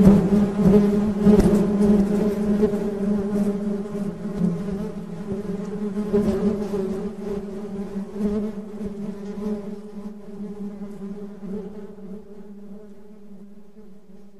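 Honey bees buzzing: a steady, even-pitched hum with its overtones, a few crackly ticks in the first couple of seconds, growing gradually fainter toward the end.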